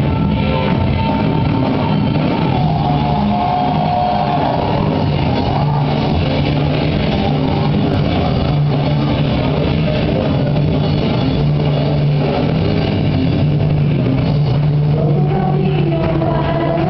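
A band playing rock-style worship music, loud and steady, with electric guitar and drum kit.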